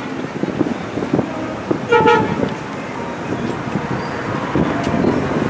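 Steady street traffic noise with a short car horn toot about two seconds in.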